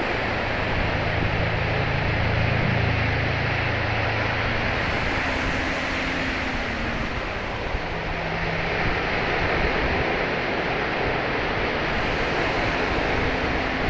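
Sea waves and wind buffeting the microphone on open water, swelling and easing every few seconds.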